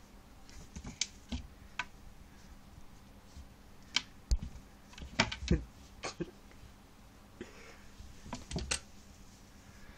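A cat's paws and claws tapping, scratching and knocking on a wooden shelf as it bats and pounces: irregular sharp clicks and thumps, several in quick succession around the middle and again near the end.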